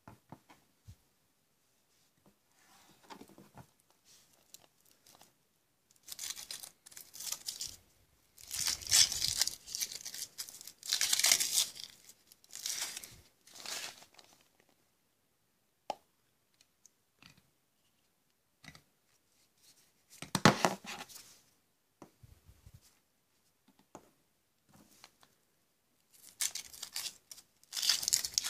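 Foil wrappers being torn and crinkled off Kinder Surprise chocolate eggs, in several crackling bursts with quiet handling clicks between them and a short, fuller knock about two-thirds of the way through.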